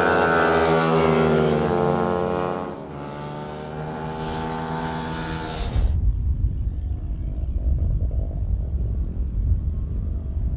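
Racing motorcycle engine running hard as the bike comes along the track, its pitch sliding down, easing off about three seconds in and pulling again. About six seconds in the engine sound cuts off abruptly, replaced by a loud, uneven low rumble.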